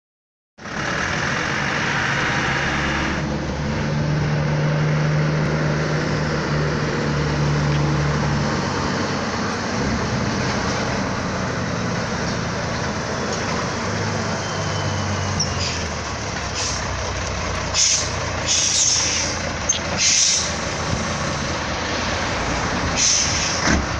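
Scania 111 truck's six-cylinder diesel engine running, its engine speed rising and falling several times. In the last third come several short, sharp hisses of air, typical of the truck's air brakes.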